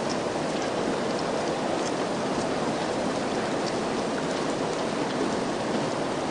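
Steady rain falling, an even hiss with scattered single drops ticking now and then.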